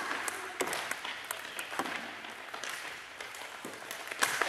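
Irregular sharp clacks of floorball sticks and the plastic ball striking the floor, the goal and the goalkeeper's gear, with a louder crack near the end.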